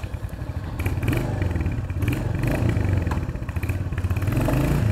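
Royal Enfield Hunter 350's single-cylinder engine starting up and then running at a steady idle.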